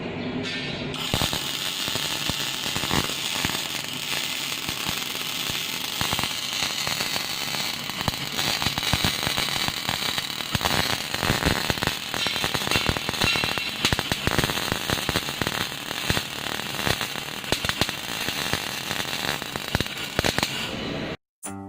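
MIG welding arc crackling steadily, a dense run of sharp pops over a hiss. It starts about a second in and cuts off suddenly near the end.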